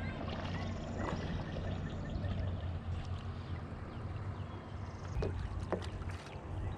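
Paddle strokes splashing and dripping in the water beside an inflatable kayak, over a steady low rumble.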